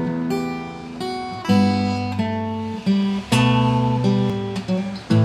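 Acoustic guitar playing the intro of a sertanejo song, chords strummed about once a second and left to ring over a moving bass line.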